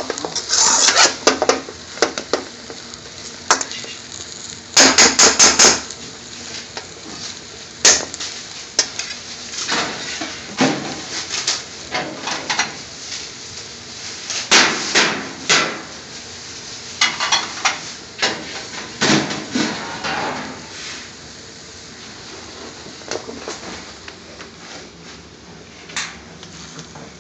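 A metal spatula clattering and scraping against a wok as chopped potato and beans are stir-fried, in repeated bursts of rapid knocks. The strikes thin out in the last third, with one more knock near the end.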